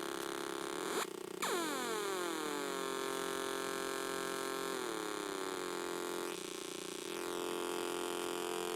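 Breadboarded dual Atari Punk Console, a 556 timer square-wave synth, droning buzzy tones through small computer speakers as its pitch knobs are turned. A brief break comes about a second in, then a tone glides down in pitch, and another downward slide follows around five seconds in.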